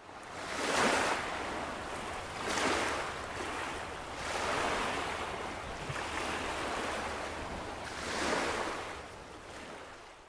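Small waves washing on a shore, the noise of the surf swelling and falling every couple of seconds; it fades in at the start and fades out at the end.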